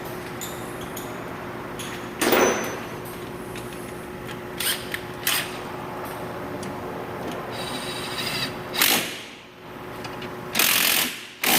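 Hand tools tightening bolts on the air-conditioning line fittings: a few short scraping, clanking noises, with a steady hum underneath.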